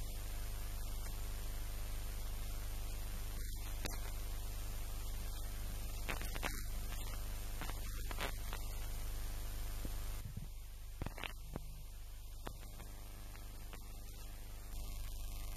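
A steady low electrical-type hum with evenly spaced overtones, with a few faint clicks and ticks over it, dropping slightly in level about ten seconds in.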